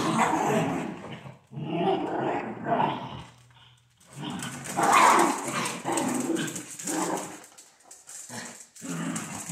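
Dachshunds growling as they play-fight, in rough bouts of a second or two broken by short pauses.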